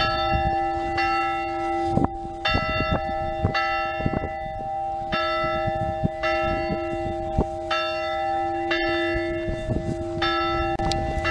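A single church bell swinging and ringing, struck in pairs about a second apart, with each pair coming roughly two and a half seconds after the last.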